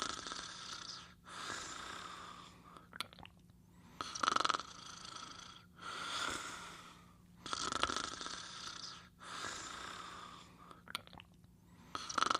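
Snoring in sleep: a long noisy breath about every three to four seconds, with short quiet gaps between and a few faint clicks in the gaps.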